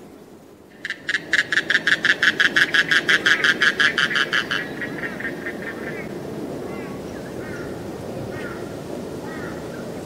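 A loud, rapid rattling animal call, about eight pulses a second, starts about a second in and runs for nearly four seconds. After it come faint, scattered chirps over a steady low background noise.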